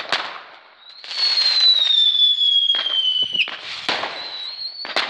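Fireworks going off: a sharp bang at the start, then loud crackling with a whistling firework's tone sliding slowly down for about two and a half seconds before it cuts off, and two more bangs near the end.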